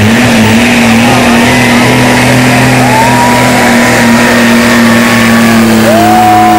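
Diesel pickup truck engine working under full load as it drags a pulling sled, running hard at a steady, held pitch with no let-up.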